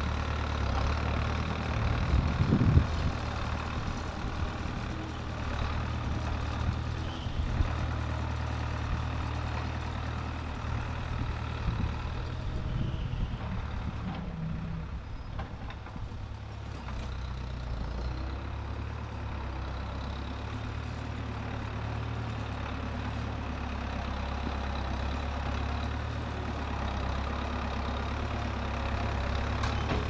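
Tractor loader-backhoe engine running steadily as the machine levels dirt with its front bucket. It fades in the middle as the machine moves away and grows louder again near the end as it comes back.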